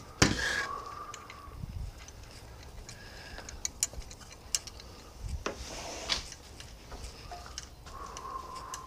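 Scattered metallic clicks and light knocks of aluminium thruster brackets and bolts being handled and fitted to a mounting plate, with a few brief squeaks.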